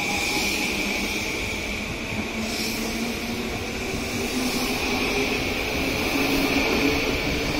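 E235-1000 series electric train pulling out and gathering speed along the platform: the whine of its inverter-driven traction motors climbs slowly in pitch over the steady rumble of the cars running on the rails, growing a little louder near the end.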